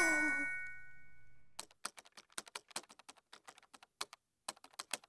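Cartoon sound effect: a quick, irregular run of small dry clicks, like tapping or typing, after the tail of a descending music sting fades out.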